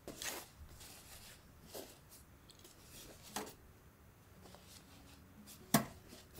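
Folded cotton towels being handled and set into a woven basket: soft cloth rustles with four brief knocks about a second and a half apart, the sharpest near the end.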